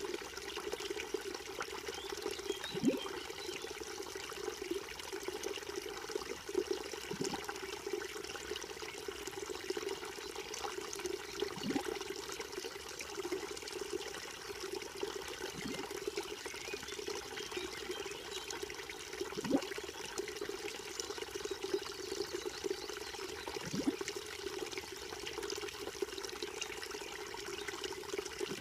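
A small brook trickling and gurgling steadily, with a deeper gurgling plop recurring about every four seconds.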